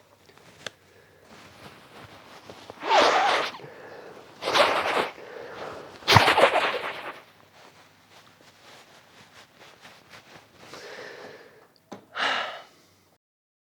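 A man with a head cold sneezing: three loud sneezes a second or two apart a few seconds in, and a fourth near the end.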